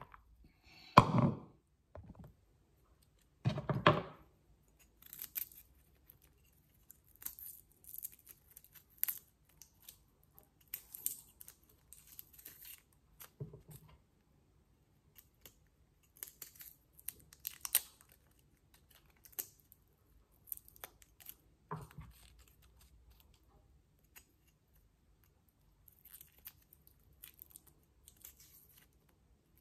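Garlic cloves being peeled with a small knife: many short, faint crackles and scrapes of papery skin tearing, with light knife touches on a cutting board. Near the start, two louder knocks as chopped onion is shaken out of a manual chopper's container into a plastic bowl.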